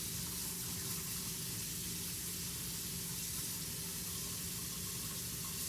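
Kitchen faucet running hot water steadily into the newly installed sink, the stream splashing and draining: a test for leaks and drainage.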